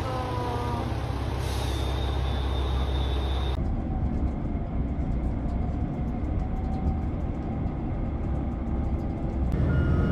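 Steady low rumble of a running vehicle, changing abruptly about three and a half seconds in and again near the end.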